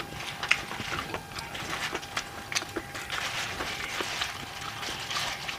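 Chopsticks clicking and tapping against a plastic takeout tray while food is picked up: a string of short, irregular clicks over a faint steady hum.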